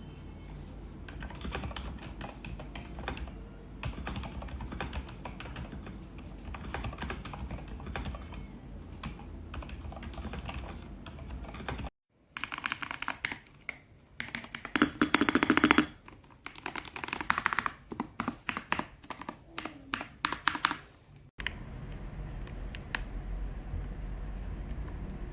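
Typing on a ZIFRIEND ZT104 gasket-structure mechanical keyboard fitted with silent switches: continuous trains of key clicks. The sound cuts abruptly twice; the middle stretch has louder, faster bursts of keystrokes, and the last few seconds hold only a few scattered clicks over a low hum.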